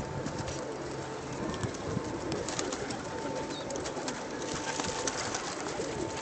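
Pigeons cooing in a loft, several low wavering coos overlapping, with scattered light clicks and scuffs throughout.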